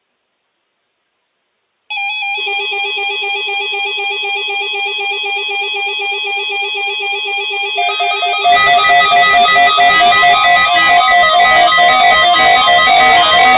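Electronic music made of rapidly alternating pitched tones, with a thin, narrowband sound, starting about two seconds in. About eight and a half seconds in, a fuller, louder layer joins.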